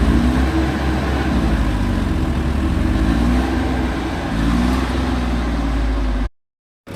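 Diesel engine of a JCB-type excavator or backhoe loader running steadily, its pitch wavering slightly. The sound cuts out abruptly for about half a second near the end.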